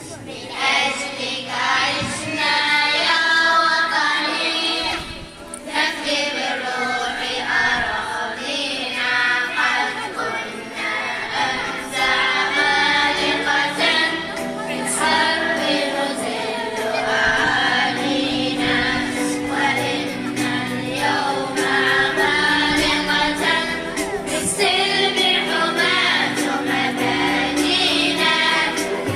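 A nasheed group singing a patriotic Arabic song together as a choir.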